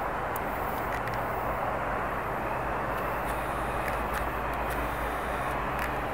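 Steady wash of road traffic on a highway below, cars passing, with a low hum underneath.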